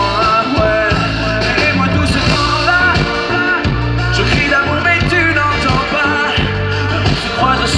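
Live pop-rock band heard through a large outdoor PA: a male lead vocal over electric and acoustic guitars, bass, keyboards and drums, played steadily and loud.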